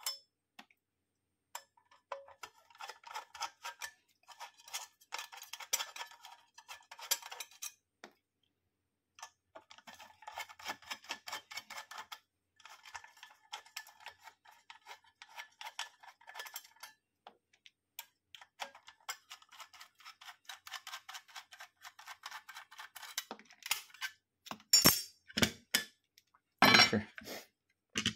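Precision screwdriver turning small screws out of an aluminium electronics case: fast runs of light clicks and scrapes, several stretches with short pauses between them. Near the end come a few much louder metal knocks and clatters as the case parts are handled.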